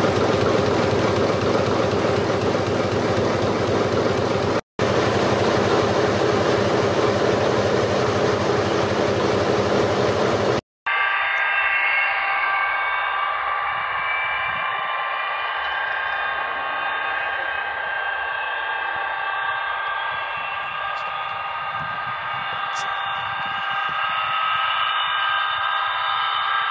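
For about the first 11 seconds, a dense, steady running noise of heritage machinery. Then, after a sudden cut, the Avro Vulcan XH558's Rolls-Royce Olympus turbojets running on the ground: several steady high whistling whines over a softer rushing hiss.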